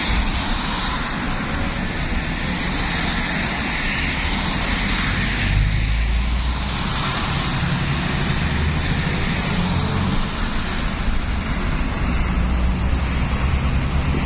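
Steady highway traffic noise, cars passing continuously with a deep rumble underneath.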